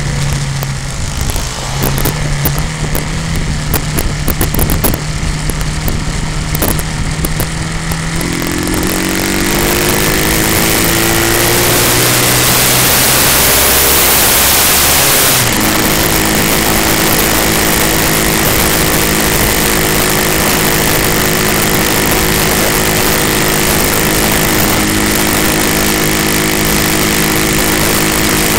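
Motorcycle engine running under way, its pitch rising as it speeds up about nine seconds in, then changing abruptly to a new steady note about fifteen seconds in, as at a gear change. Wind rushes on the microphone, loudest just before that change.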